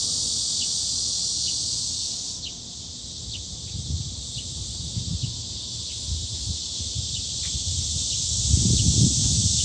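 Cicadas singing: a continuous high-pitched buzzing drone that eases off a little over two seconds in and swells again near the end, with some low rumbling underneath.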